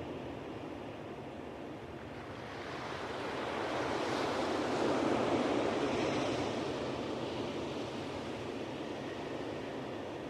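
Ocean surf on a beach: a steady rushing wash of waves that swells to a peak about halfway through as a wave breaks, then eases back.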